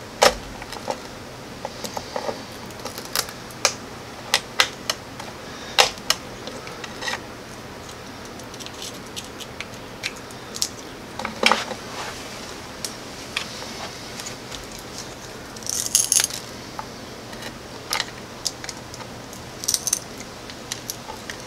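Irregular light clicks and clinks of small hard pieces, pebbles and broken epoxy potting from a gutted CDI box, being handled and poked at on a board, with a couple of quick rattling clusters.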